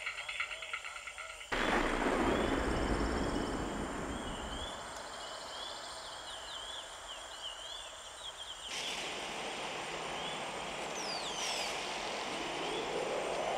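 Nature ambience: a steady rush of water with birds chirping over it. The rushing changes abruptly twice, and a rising hum swells in near the end.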